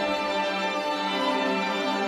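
Slow music with a chord held steady, with no beat.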